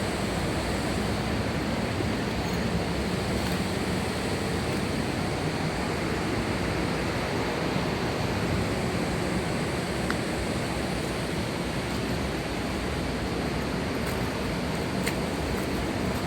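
Steady rush of water, an even unbroken roar.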